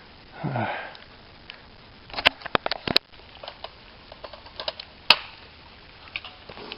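A sniff about half a second in, then a scattering of sharp clicks and knocks, the loudest a few around two to three seconds in and one about five seconds in.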